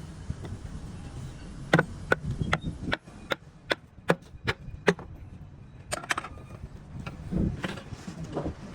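A run of sharp knocks, about ten at two to three a second, then a few more spaced out.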